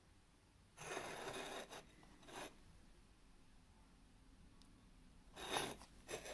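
Ceramic tile scraping over a wooden board as it is turned by hand, twice: a longer rub about a second in and another near the end.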